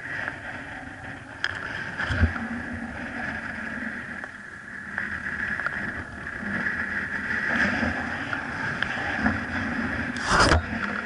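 Honda dirt bike engine idling steadily while stopped, with a brief loud thump near the end.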